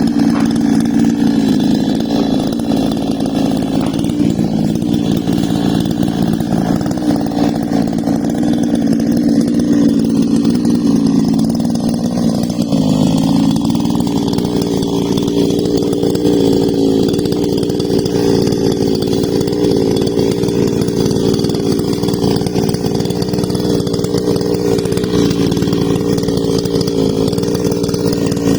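Husqvarna two-stroke chainsaw running at high revs through a cut in a large tree, steady and loud. About halfway through, its pitch sags briefly under the load, then settles slightly higher.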